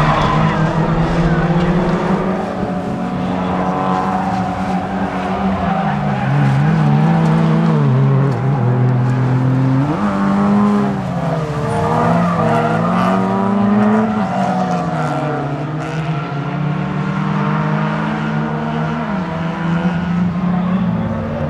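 Several Fiat Seicento rallycross cars racing, their engines revving up and falling back through gear changes, with tyres skidding on the loose surface.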